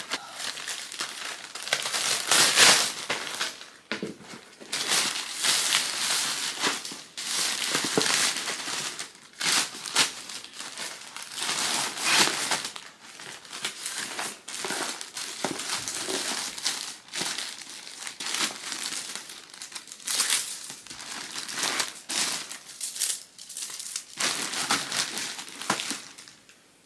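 Plastic packaging crinkling and rustling in irregular bursts: a plastic poly mailer bag and plastic-wrapped items being handled and packed.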